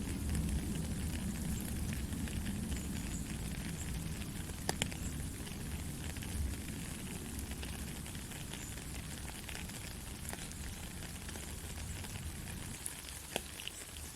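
Soft rain falling steadily: an even hiss of drops with scattered individual drip ticks, over a low rumble that fades near the end.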